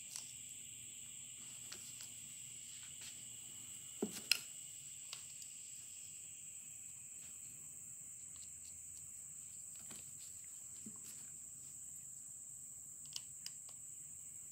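A few light clicks of a small screwdriver working the screws out of a phonograph motor's fiber gear, two close together about four seconds in and two more near the end, over a steady high-pitched whine.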